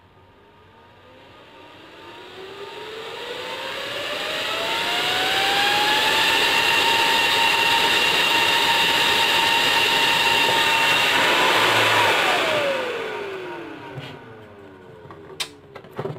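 A 12 V DC centrifugal cooling blower spinning up, its whine rising in pitch over about six seconds, holding steady at full speed, then winding down about twelve seconds in. A few sharp clicks follow near the end as the wires are handled.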